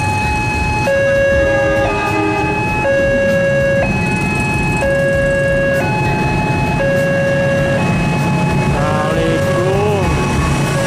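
Railway level-crossing warning alarm sounding a two-tone signal that alternates between a high and a low tone about once a second, warning that a train is approaching. Beneath it is the low running of waiting motorcycle engines. A short tone rises and falls about nine seconds in.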